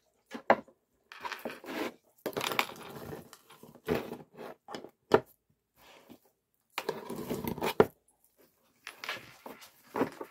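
Hands handling wet dog food in a plastic dog bowl: irregular bursts of handling noise, with a few sharp clicks and knocks against the bowl.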